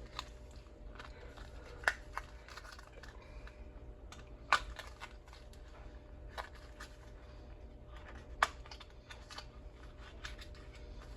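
Handling a small box of .22 rimfire ammunition: scattered light clicks and taps, three sharper clicks standing out, about two, four and a half and eight and a half seconds in.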